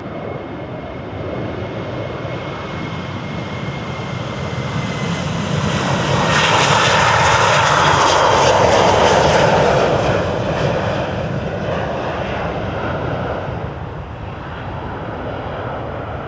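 Jet airliner's engines passing by, the rush building to its loudest about seven to ten seconds in and then fading away, with a faint thin whine in the first few seconds.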